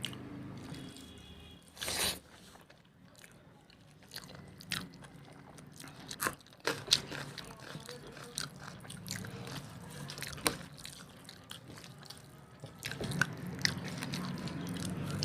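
Close-miked chewing and biting of mutton curry and rice, with scattered wet mouth clicks and smacks.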